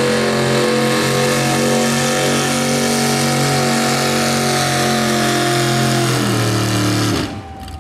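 Modified 1980s Ford F-series pickup's engine running at steady high revs under full load as it drags a weight-transfer pulling sled. The sound stops abruptly about seven seconds in.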